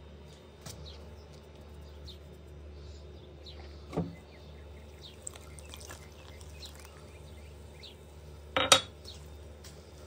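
Kitchenware clattering as a plastic jug and mixing bowl are handled while a yeast-and-milk mixture is poured into flour: a knock about four seconds in and a louder double clink near the end, over a low steady hum.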